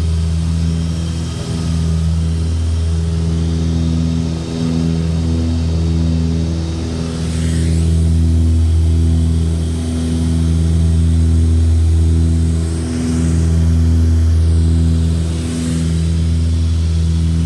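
Light aircraft's piston engine and propeller droning steadily in flight, heard from inside the cockpit, the drone swelling and dipping slowly every two to three seconds.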